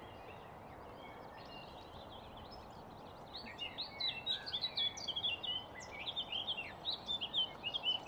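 Small songbirds twittering and chirping in the forest canopy, several quick calls at once, getting busier and louder about three seconds in, over a steady background hiss.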